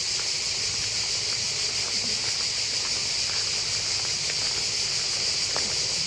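Cicadas singing in a continuous chorus: a steady, high-pitched buzz that never breaks.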